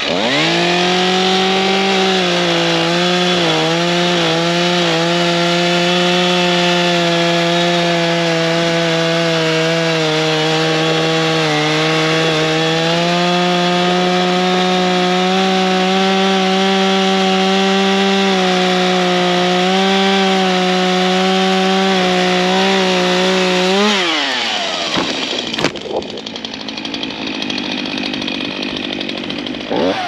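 STIHL MS251 two-stroke chainsaw revving up and cutting at full throttle through a dead tree trunk, its pitch sagging now and then under load. About 24 seconds in it drops back to idle, and a single thud follows as the felled tree hits the ground.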